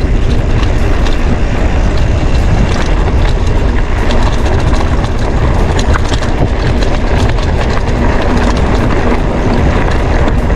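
Mountain bike rattling over a rough, rocky dirt road: a steady low rumble from the tyres with frequent clicks and knocks from the bike jolting on the bumps.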